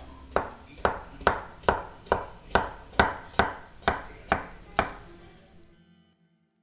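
Kitchen knife chopping cucumber on a wooden cutting board: a steady run of about a dozen crisp strokes, roughly two a second, that stops about five seconds in.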